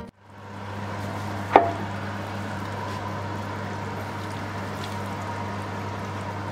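Kitchen sound during food preparation: a steady hiss and hum with one sharp clink about one and a half seconds in.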